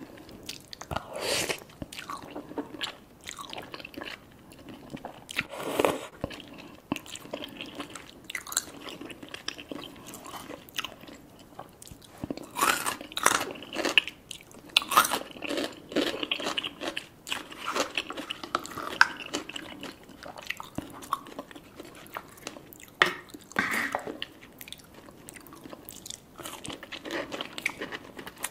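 Mukbang eating sounds: slurping and chewing noodles from a spicy Korean stew, with wet, clicky bites and chewing of lobster claw meat near the end, in many irregular short bursts.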